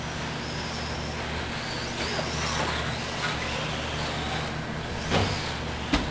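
Whine of the Schumacher CAT 3000 RC buggy's 21.5T brushless electric motor, rising and falling in pitch as it is driven around the track, over a steady low hum. Two sharp knocks come about five and six seconds in.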